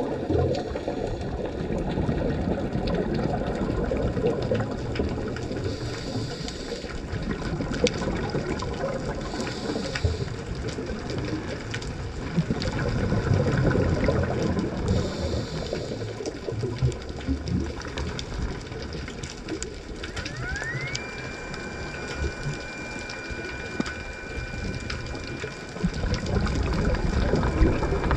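Underwater scuba-dive sound: a diver's regulator breathing, with a brief hiss a few times and a rumble of exhaled bubbles. About twenty seconds in, a thin whine rises and then holds steady.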